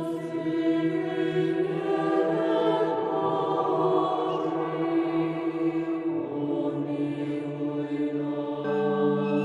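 Orthodox church choir chanting in slow, sustained chords, moving from one held note to the next every second or two.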